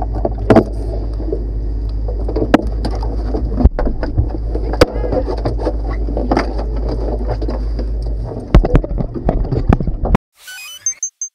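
Knocks and thumps on the hydroplane's hull and cockpit as people step around the docked boat, over a steady low hum. Heavier knocks come as a hand handles the camera, then the sound cuts off abruptly about ten seconds in, followed by a few faint high electronic tones.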